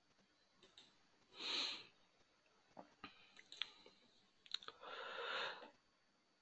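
Faint breathing close to a microphone: a short breath about one and a half seconds in and a longer one about five seconds in, with a few faint clicks between them.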